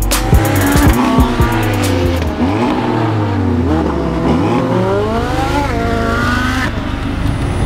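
High-revving car engines, several overlapping rises and falls in pitch, with the higher sound stopping abruptly near the end.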